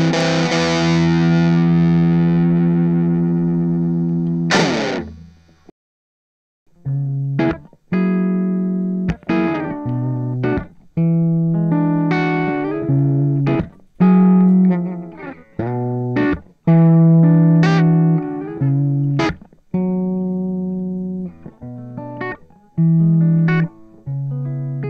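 Electric guitar through an M-vave Mini-EFX overdrive pedal. A held overdriven chord on the Odrive-DB setting rings and fades, cut off by a short scrape about five seconds in. After a brief pause a riff of short, choppy overdriven chords and single notes follows on the Odrive-AMP setting.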